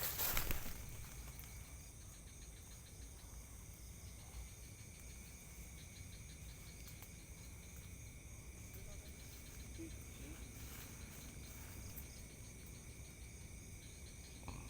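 Night insects, crickets, chirring steadily in a chorus of several high thin tones. A brief noisy knock or rustle comes right at the start.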